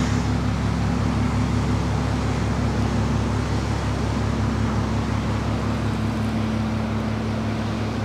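A large gong-like metal instrument ringing on after a strike: a deep, sustained drone with an even, fast pulsing waver and a steady higher tone above it.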